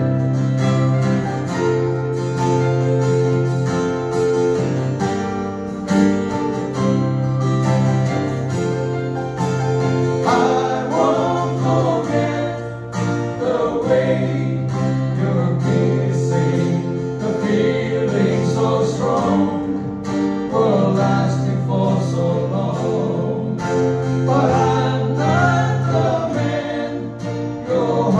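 Small band playing a song live on acoustic guitars and keyboard, with steady low held notes under the chords. Singing comes in about ten seconds in and carries on in phrases.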